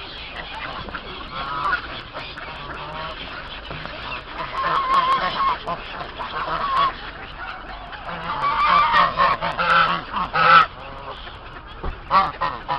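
Canada geese honking again and again from a mixed waterfowl flock, in bursts of several calls; the loudest honk comes about ten and a half seconds in.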